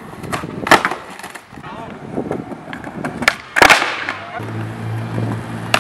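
Skateboard tricks on smooth paving: a sharp wooden clack about a second in, then a pop and a loud landing clack a little after halfway. A steady low hum starts near the end.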